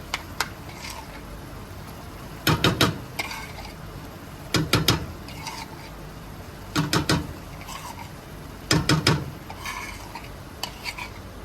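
Cooking utensils knocking and clattering, in quick clusters of three or four sharp knocks that come back about every two seconds.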